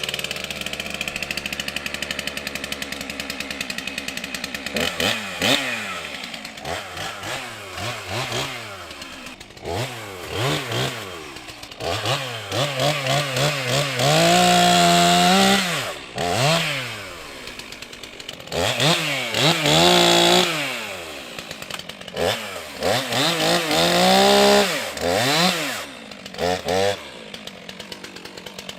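Stihl MS 362 C-M two-stroke chainsaw idling with a fast steady beat, then revved up and down again and again from about five seconds in. It is held at high revs for a couple of seconds about halfway through and again near the end.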